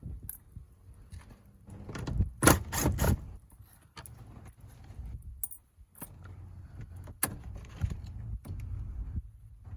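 Clicks, rattles and knocks of a plastic interior door trim panel being worked loose from a truck door, with a cluster of sharp knocks between about two and three seconds in.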